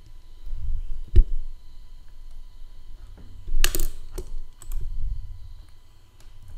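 A few separate sharp clicks and knocks from a computer mouse and keyboard being worked on a desk, about five in all, the loudest about a second in, with low thuds between them.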